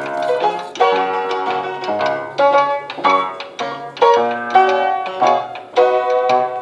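Background music: a quick melody of plucked-string notes over a low bass line.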